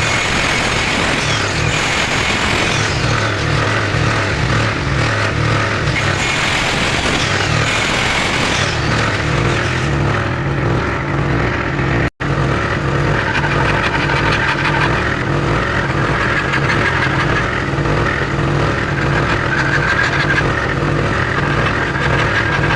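A motor-driven woodworking machine running steadily and loudly, with a throbbing low hum. The sound cuts out for an instant about halfway through, then carries on much the same.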